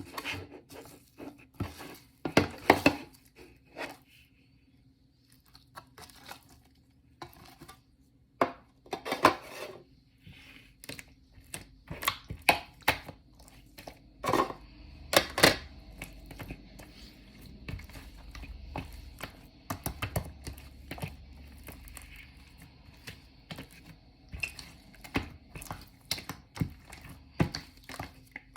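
Shaving-foam marbled slime being worked by hand, giving irregular crackles, clicks and pops, some much sharper and louder than others.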